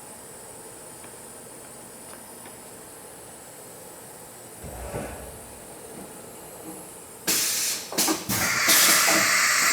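Hurco VM-1 CNC vertical machining center going through a tool change: a low steady machine hum, a soft clunk about five seconds in, then from about seven seconds a loud hiss of compressed air, broken once briefly, as the spindle lets go of the tool.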